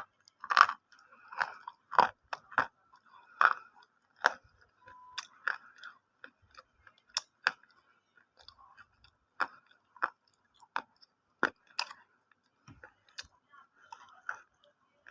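Someone chewing crunchy food close to the microphone: a run of sharp, irregular crunches, about one every half second at first, growing sparser and softer toward the end.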